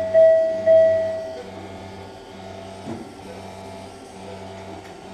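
Electronic beep from the operating-room equipment: one high, steady tone that swells about three times and stops about a second and a half in, over a low machine hum.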